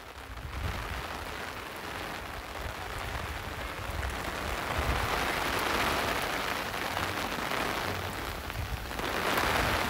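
Heavy rain falling steadily on paving and foliage as an even hiss, growing stronger about halfway through and again near the end.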